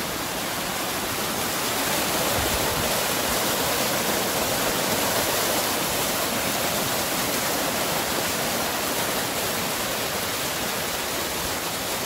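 Small waterfall pouring down a mossy rock face close by: a steady rush of falling, splashing water.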